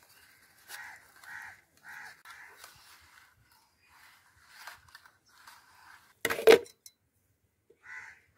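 Crows cawing repeatedly in the background, with one loud metallic clank of stainless-steel kitchenware about six seconds in as the steel tiffin box is handled.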